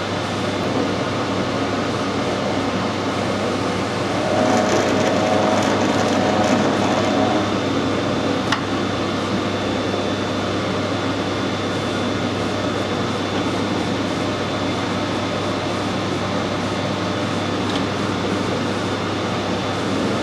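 Metal lathe running in back gear while screw-cutting a 1.5 mm pitch thread in brass with a form tool: a steady motor and gear hum. It grows louder and fuller for a few seconds about four seconds in, and there is one sharp click about eight seconds in.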